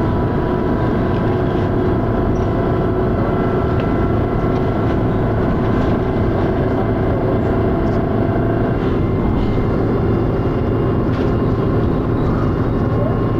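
Dennis Arrow double-decker bus running under way, heard on board: steady engine and ZF automatic gearbox noise with high-pitched whining tones over it. One of the whines drops out about two-thirds of the way through.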